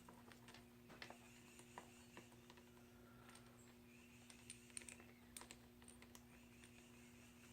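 Near silence, with faint scattered light clicks of small metal parts and tools being handled over a steady low hum.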